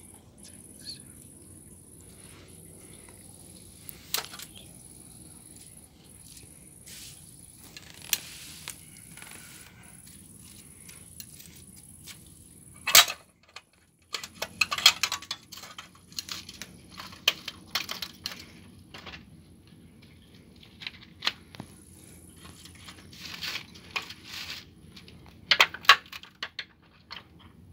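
Scattered clicks, creaks and crinkles of a plastic model truck and the plastic sheet beneath it as a bare foot presses down on the truck's cab, with a few sharper snaps. Crickets chirp steadily in the background.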